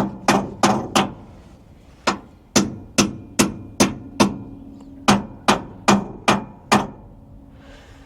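Hammer blows, about fifteen sharp strikes in three quick runs of four or five with short pauses between, each with a brief ring. The strikes stop shortly before the end.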